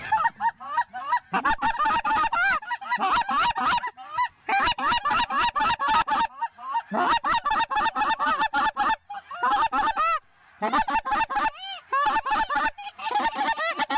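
Geese honking and clucking in quick, overlapping succession, many short calls a second, with brief pauses about four and ten seconds in.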